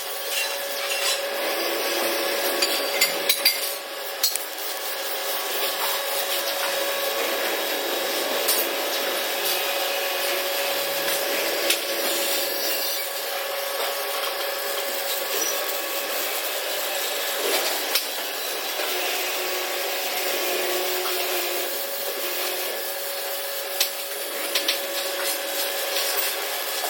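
Welding arc on a steel pipe: a steady hiss with a faint constant tone and scattered sharp pops.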